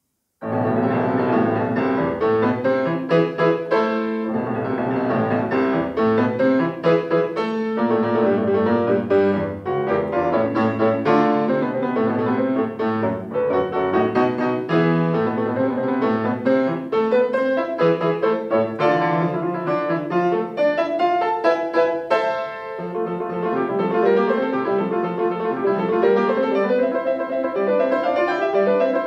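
Solo grand piano playing a classical piece. It starts about half a second in, out of silence, and goes on in quick, dense runs of notes.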